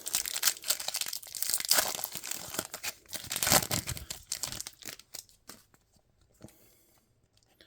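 A foil-wrapped football trading card pack being torn open by hand, its wrapper tearing and crinkling. The crackle is loudest about halfway through, then dies away to near silence in the last couple of seconds.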